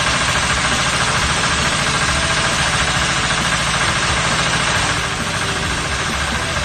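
A 3600 psi diesel pressure-washer pump running steadily, with the hiss of its high-pressure water jet blasting moss off roof tiles through a telescopic lance. The sound drops a little about five seconds in.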